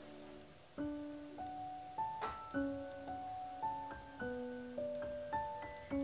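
Background music: a slow, gentle piano melody of single notes, a new note roughly every half second, each ringing out and fading over soft lower notes.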